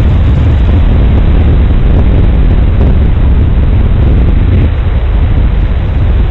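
Heavy wind noise on a microphone: a loud, steady low rumbling roar with no clear engine tone.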